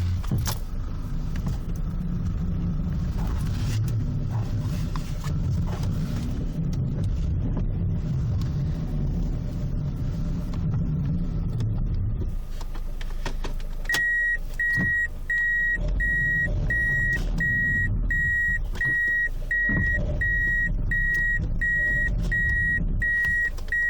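Toyota Corolla Fielder with a U340E automatic transmission: a low rumble and vibration for about the first twelve seconds. From about fourteen seconds in, the reverse-gear warning beeper sounds about once a second, with a few dull knocks under it. This is the vibration and knock that comes on when reverse is engaged.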